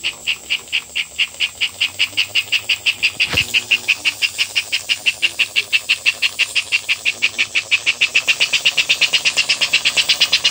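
Chuffer of an HO scale American Flyer smoking tender, worked by a homemade copper-tube piston in place of the rubber bellows, chuffing in a fast, even rhythm that quickens slightly as the train runs. A single click about three seconds in.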